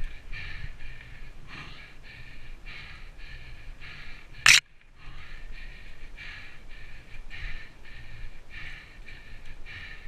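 Mountain bike riding a dirt forest singletrack: a low rumble of tyres and bike over the ground, with an even pulsing higher sound about two to three times a second. About four and a half seconds in there is one sharp, loud knock, and the sound drops out briefly after it.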